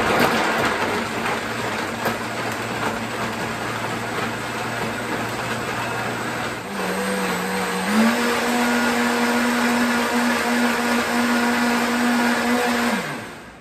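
Countertop blender running, blending a banana and coconut smoothie. Its motor hum steps up in pitch about halfway through and again a second later, then winds down and stops near the end.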